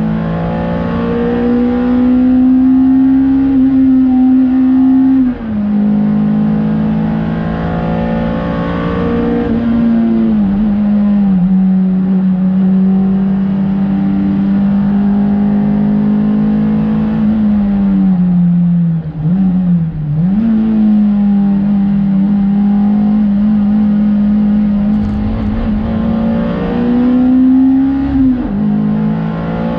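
Honda Civic EP3 race car's four-cylinder engine running hard on track. Its pitch climbs slowly and drops sharply at gear changes, about 5 s in and again near the end, with a brief dip and recovery about two-thirds of the way through.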